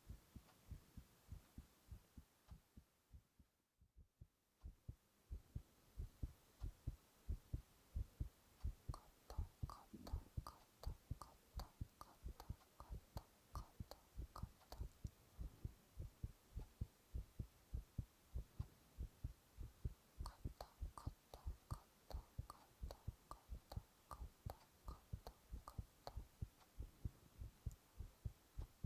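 Human heartbeat picked up close through a microphone pressed to the chest: a steady run of low thumps. The beats fade out for a moment a few seconds in. Twice a run of lighter clicking rides over the beats.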